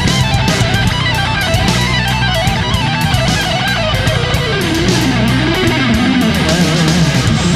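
Background music led by guitar, with a steady beat and a melody line.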